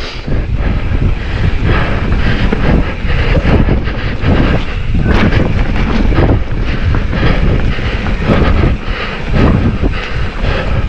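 Mountain bike riding fast down a dirt trail, heard from the rider's own camera: a loud, steady rumble of tyres over the ground and wind on the microphone, with frequent knocks and rattles as the bike goes over bumps.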